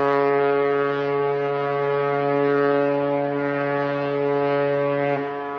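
A ship's horn sounding one long, deep, steady blast that stops about five seconds in, then its echo trails off.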